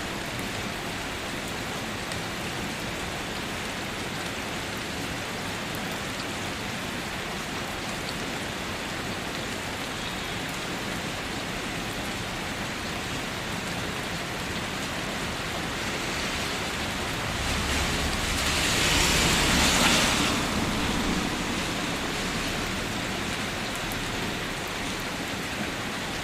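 Steady rain falling and pattering on surfaces. About two-thirds of the way through, the rushing grows louder with a low rumble for a few seconds, then fades back to the steady rain.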